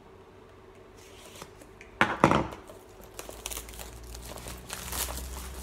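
Plastic cellophane wrap being cut and torn open on a small cardboard vape-kit box: a sharp rip about two seconds in, then crinkling as the film is pulled away.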